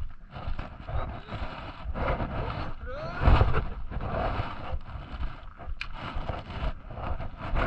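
Wind buffeting a head-mounted action camera's microphone over water sloshing around a wading angler, with a louder rumbling burst about three seconds in.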